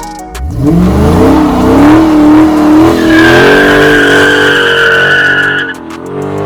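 Car engine revving up with tires squealing, a high steady squeal joining about halfway through and stopping near the end.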